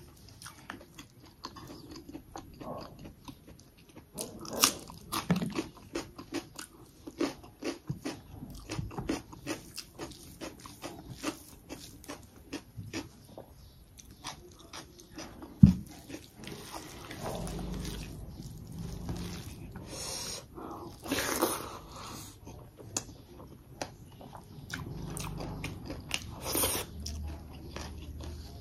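Close-miked mouth sounds of a person eating by hand: crisp crunching bites and wet chewing, with one sharp knock about halfway through.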